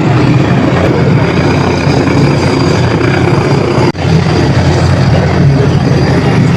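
Loud, steady engine rumble from a passing military vehicle or aircraft. It breaks off for an instant about four seconds in, then carries on.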